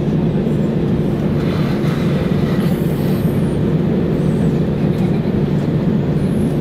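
Steady rumble and hum inside an Airbus A320 cabin with its engines running at idle, the airframe and air-conditioning noise unbroken throughout.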